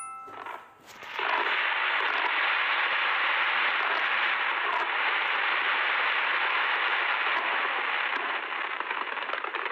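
A few short electronic chime tones, then from about a second in a dense, steady crackle and hiss of fireworks going off.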